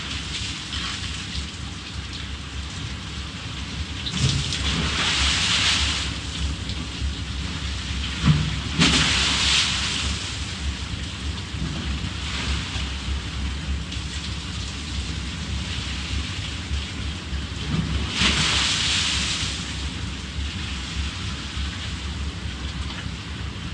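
Steady heavy rain, with three louder rushes of noise about 4, 9 and 18 seconds in, each opening with a short low thud.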